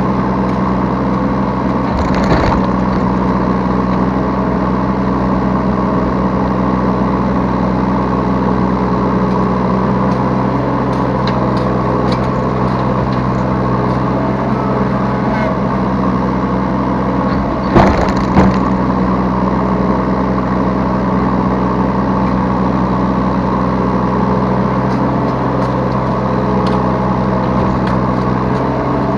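Yanmar B3 Sigma 3-tonne mini excavator's diesel engine running steadily during digging and loading work, heard from the operator's seat. There is a sharp knock about two seconds in, and two louder knocks about half a second apart around eighteen seconds in.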